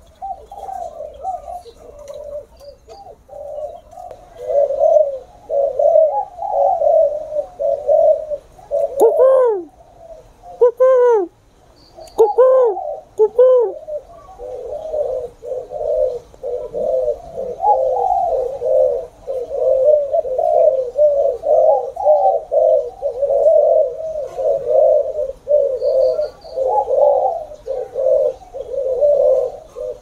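Many spotted doves cooing at once, their phrases overlapping without a break. Around the middle, a few louder calls rise and fall in pitch above the cooing.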